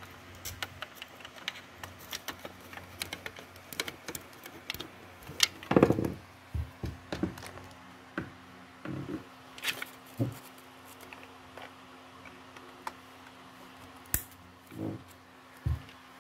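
Handling noise: scattered clicks and light knocks as a yellow LAN cable plug and the opened plastic casing of a Huawei B315s-936 modem are handled, with a few duller thumps around the middle. A faint steady hum comes in about six seconds in.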